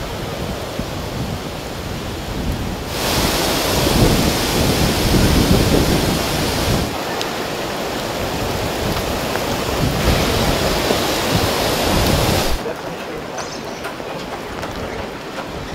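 Heavy rain over flooded streets: a steady rushing hiss that grows louder about three seconds in and drops back near the end.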